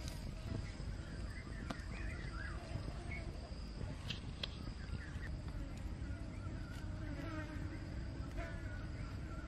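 Insects buzzing and chirping over a steady high-pitched hum, with a few sharp clicks.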